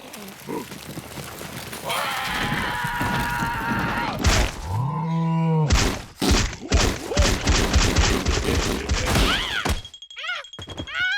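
Slapstick cartoon soundtrack. Thumps and knocks come in quick succession, with a low, drawn-out groaning voice about five seconds in, then high, squeaky, wavering cartoon voices near the end.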